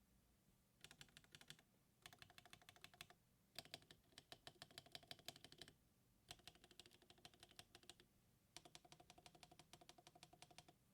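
Mercutio 40% mechanical keyboard with Akko Cream Yellow linear switches being typed on in five quick runs of keystrokes with short pauses between them.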